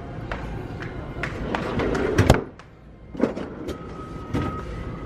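Store background noise with scattered clicks and knocks, one sharp knock a little over two seconds in, and a steady high beep-like tone starting a little past the middle.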